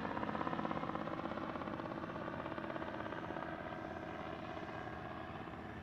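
Light aircraft engine droning steadily with a fine regular pulsing, slowly fading as it moves away.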